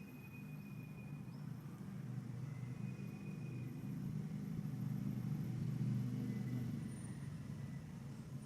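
A low, steady rumble that swells about five seconds in and eases near the end, with faint thin high tones above it.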